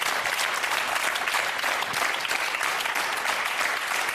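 Audience applauding: many hands clapping in a dense, even patter at a steady level.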